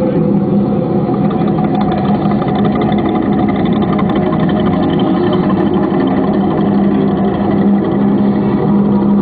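Live ambient electronic music: a dense, steady drone built on a low held tone, with higher sustained tones and a grainy texture over it and no clear beat.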